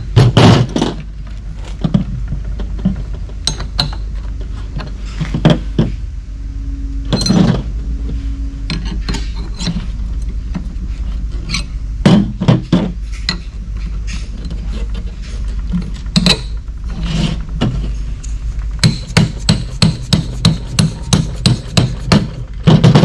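Rubber mallet knocks and clinking metal parts as bolts are tapped into a steel transfer-case cradle. The knocks come at irregular intervals, then a quick run of about four clicks a second near the end.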